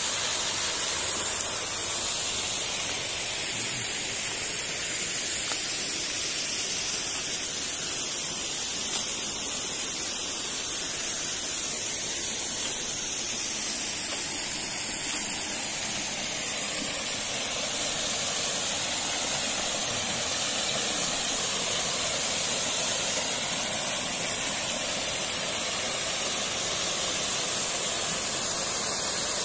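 Steady rushing hiss of water falling at a waterfall, even and unbroken throughout.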